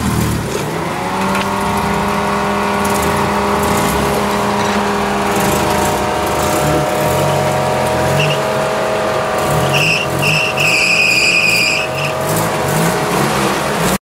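UAZ-469 off-road engine revving hard and held at high revs under load, its pitch steady and sagging a little as it climbs. A few short high-pitched squeals come near the end.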